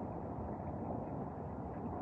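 Low, steady rumbling noise of a severe thunderstorm, with no sharp crack inside.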